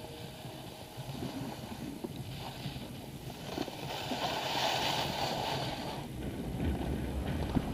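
Skis sliding and scraping over packed snow, swelling into a louder hiss for a couple of seconds about halfway through, with a low rumble of wind on the microphone near the end.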